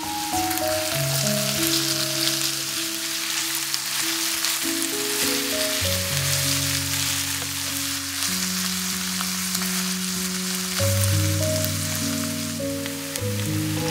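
Sliced red bell pepper and chopped red onion sizzling in hot oil in a frying pan as they are stirred, a steady crackling hiss, over background music of slow held notes.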